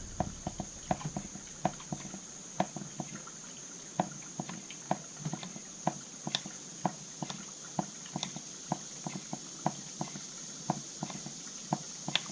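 Primer bulb on a Poulan Pro PP4218A chainsaw's Zama carburetor being pressed over and over, a short click with each press about two to three times a second. The primer is now pumping fuel up into the carburetor.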